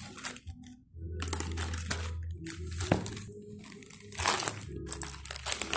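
Plastic courier mailer bag crinkling and rustling in irregular bursts as it is handled and peeled open, with a louder rustle about four seconds in.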